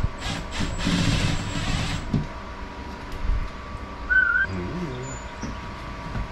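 Cordless drill running into the drywall for about two seconds, with a few clicks, then stopping. A short high chirp about four seconds in, then light handling of the plastic charger bracket against the wall.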